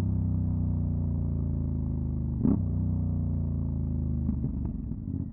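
Aprilia Dorsoduro 750 Factory's V-twin engine with a LeoVince SBK exhaust, idling steadily with one short sharp sound about two and a half seconds in. Near the end the running turns uneven and begins to fade.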